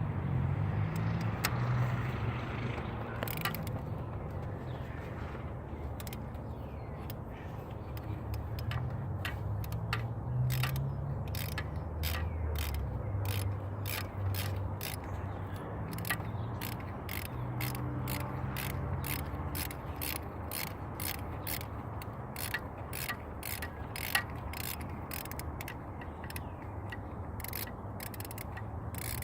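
Hand ratchet clicking as a bolt is wound out, in a steady run of about two to three clicks a second, sparse at first and continuous from about a third of the way in.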